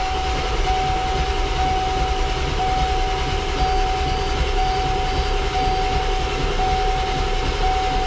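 Starter motor cranking the 1996 Ford F350's 7.3 L Powerstroke diesel steadily without it catching, with a steady high tone over the cranking: a cold-start attempt with short glow-plug preheat, the glow plug relay suspected of not working.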